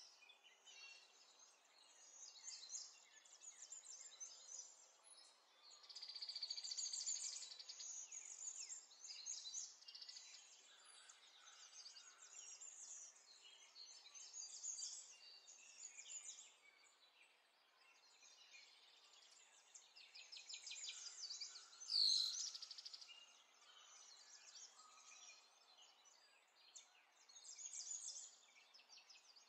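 Faint birdsong: many small chirps and trills overlapping with a hiss of background noise. About 22 seconds in there is one brief click together with a louder chirp.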